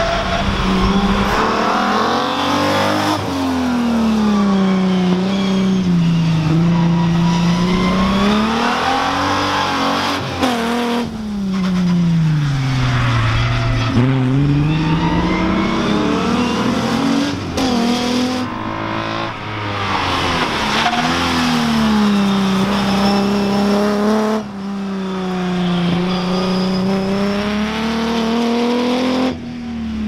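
Alfa Romeo Alfetta GTV race car's modified 3.0-litre V6 running hard on track, its note rising under acceleration and falling as it slows for corners. It comes in several short takes that break off abruptly.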